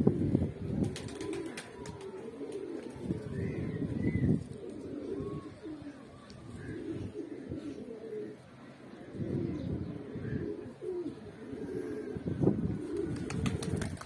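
A flock of Pakistani high flyer pigeons cooing, several birds' low, wavering coos overlapping throughout.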